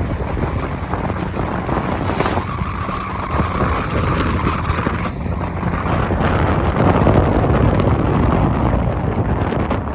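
Strong wind blowing across the microphone: a loud, continuous rumbling rush with no pauses. A steady higher tone sits over it from about two seconds in for roughly three seconds.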